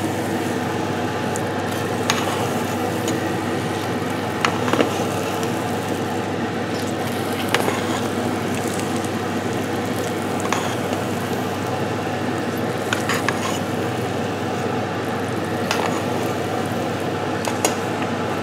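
Risotto simmering and sizzling in a stainless steel pot as it is stirred with a spatula, with a short click of the spatula against the pot every few seconds.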